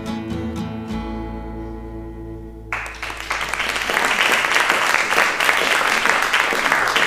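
The final chord of an acoustic guitar and bass ringing out, then audience applause breaking out suddenly about three seconds in and continuing, louder than the chord.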